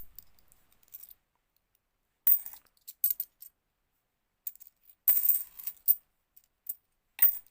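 50p coins clinking against each other as they are handled and sorted, in short scattered clusters of sharp metallic chinks with silent gaps between.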